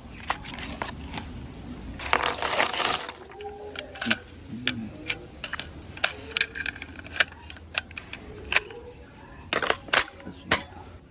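Scattered sharp metallic clicks and clinks, with a short hissing burst about two seconds in.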